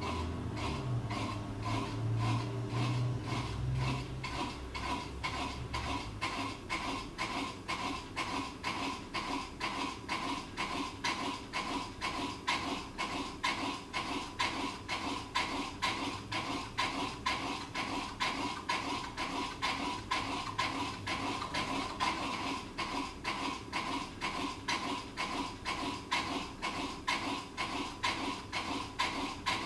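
Running ceiling fan with a steady metallic clinking about twice a second over a faint ringing tone; a low hum fades out about six seconds in.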